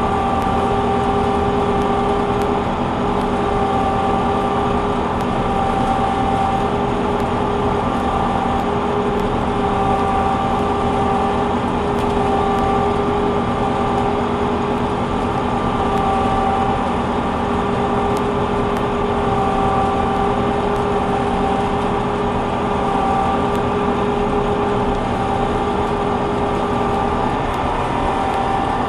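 Combine harvester running steadily while harvesting soybeans: an even engine rumble with a constant whine on top.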